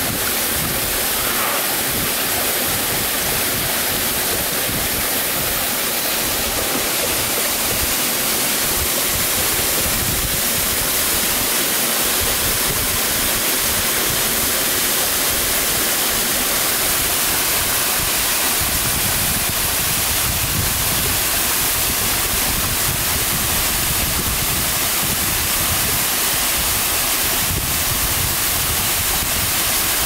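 Steady rush of a waterfall and of stream water running over rocks. A deeper low rumble comes in about two-thirds of the way through.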